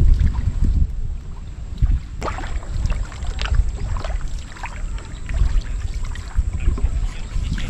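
Small wooden banca being paddled on a lake: water splashing and dripping in short, scattered bursts around the paddle and hull, over a steady low rumble of wind on the microphone.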